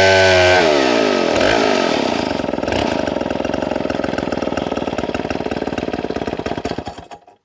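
Stihl MS070 two-stroke chainsaw coming off full throttle: its high, steady note drops in pitch about a second in as the throttle is released, and the engine settles to idle with evenly spaced firing pulses. The sound cuts off near the end.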